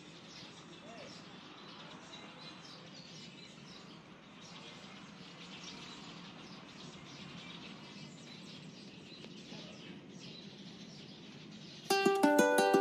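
Faint outdoor ambience with many small birds chirping over a low background hiss. About a second before the end, ukulele music starts abruptly and is much louder.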